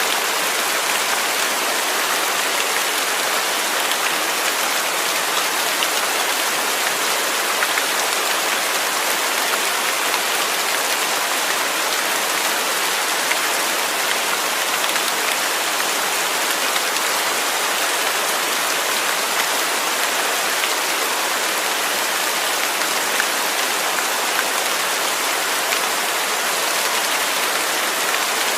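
Steady rain without thunder, a constant even hiss of rain falling on a surface with fine scattered drop ticks.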